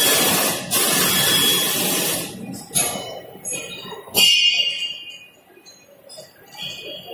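Pneumatic globe control valve's actuator and positioner releasing compressed air in two long, loud hisses, as the positioner is worked through its commissioning. After them come a few metallic clinks and a short ringing clank about four seconds in.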